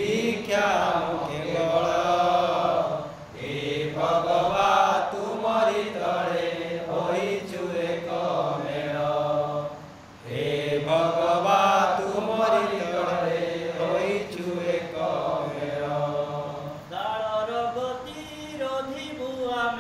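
A solo male voice singing an Odia patriotic song (desh bhakti geet) in long, drawn-out phrases, with short breaks for breath about three and ten seconds in.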